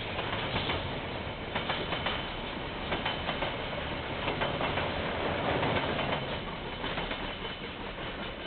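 A KiwiRail train rolling past, its wagon wheels clicking irregularly over the rail joints over a steady rumble. The sound begins to fade near the end.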